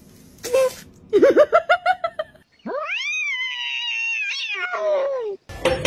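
Cat calls: a quick run of short meows, then one long drawn-out yowl that rises sharply, holds and falls away.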